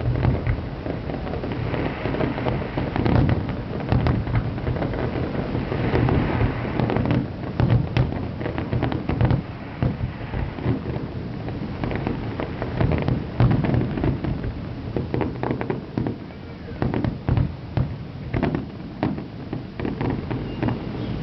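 Aerial fireworks display: a dense, continuous run of booms and crackling reports over a rolling low rumble.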